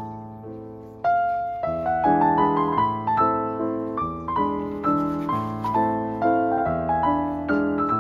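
Background piano music: a gentle melody of struck notes and chords, each fading after it is played, getting louder about a second in.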